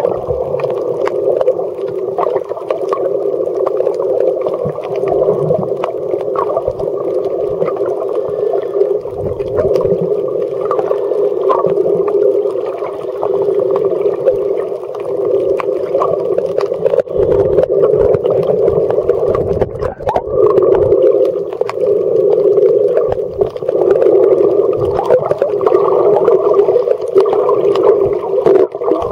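Muffled underwater sound heard through a submerged camera: a steady dull watery rush with scattered faint clicks.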